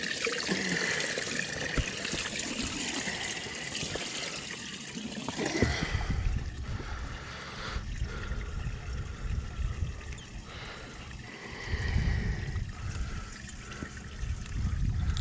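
Water trickling steadily, with a few bursts of low rumble about six, twelve and fifteen seconds in.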